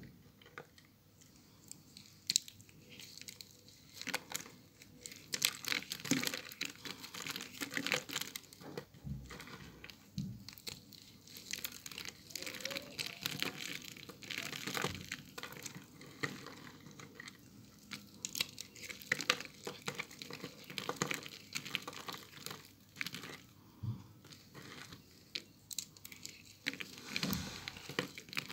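Dry soap curls and shavings being crushed and crumbled between fingers: a dense, crisp crackling and crunching. It is quieter for the first few seconds, then busier and louder.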